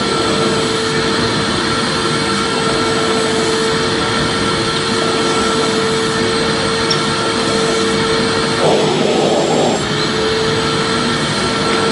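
Vacuum cleaner running steadily: an even rushing noise with a constant motor whine. About nine seconds in, the whine wavers and the rush gets slightly louder for about a second, then steadies again.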